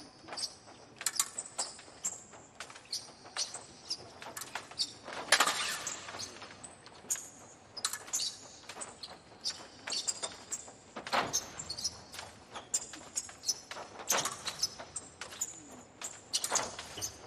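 Two épées tapping and clashing blade on blade in a bout, with the fencers' footwork on the piste: a long irregular run of short sharp clicks with a high metallic ring, plus a few heavier knocks.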